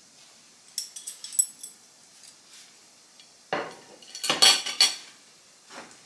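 Kitchenware clinking and clattering: chopsticks, a plate and a frying pan. A few light, sharp clinks come about a second in, then a louder run of knocks and clatter from about three and a half to five seconds, and one more knock near the end.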